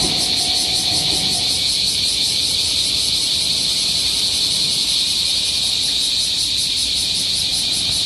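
Steady chorus of insects shrilling, with a fast even pulse in its highest part. Near the start a faint low hum from the departing train dies away.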